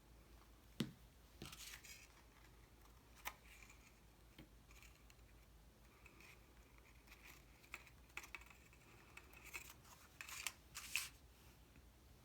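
Faint rustling and light taps of cardstock pieces being handled and pressed together, with a sharp click about a second in and another about three seconds in, and a cluster of short rustles near the end.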